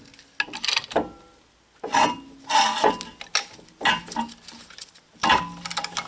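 Metal brake parts clinking and scraping as they are handled and fitted: a string of separate knocks, several with a short metallic ring.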